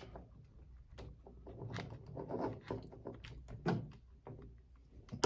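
Scattered small plastic clicks and light knocks as the plastic chassis cover of a Traxxas Mini E-Revo RC truck is worked loose by hand.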